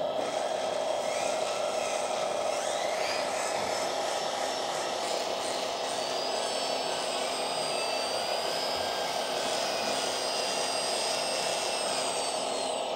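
A 1/14 scale RC mobile crane's electric-hydraulic drive whirring steadily while it raises and turns a counterweight block. A thin high whine rises about three seconds in and holds until near the end.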